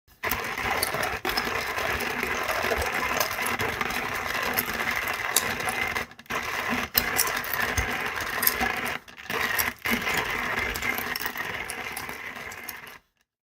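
Coffee grinder grinding coffee beans: a steady mechanical grinding that breaks off briefly a few times, then stops.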